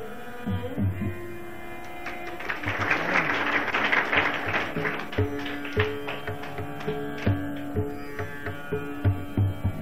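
Carnatic classical music without voice: a melodic line over held tones, with low, sharp drum strokes. About two and a half seconds in, a dense rattling swell of sound rises and fades out by about four and a half seconds.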